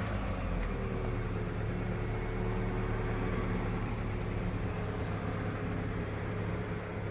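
Rover 75 engine settling back down after a rev and then idling steadily.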